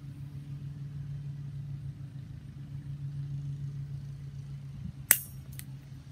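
Wire cutter of needle-nose pliers snapping through a steel wire clothes hanger: one sharp metallic snap about five seconds in, then a lighter click half a second later. A steady low hum runs underneath.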